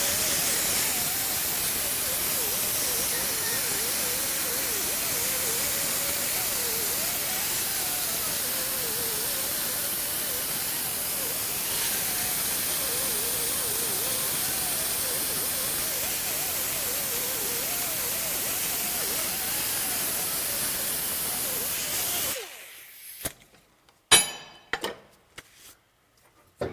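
Compressed-air tool running with a steady loud hiss and a faint wavering whine while rust is cleaned off a steering knuckle's wheel-bearing bore and mating surface. It cuts off suddenly about 22 seconds in, followed by a few sharp knocks.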